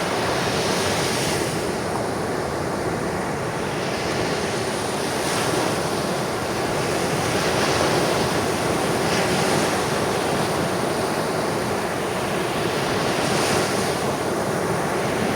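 Ocean surf: waves washing in a continuous rushing hiss that swells gently every few seconds.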